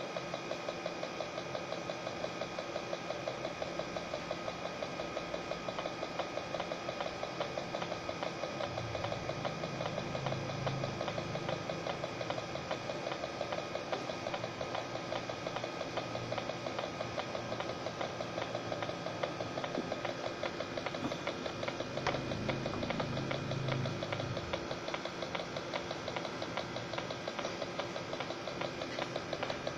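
Small hermetic refrigeration compressor running steadily, a fast even mechanical hum and clatter, with the low rumble swelling twice.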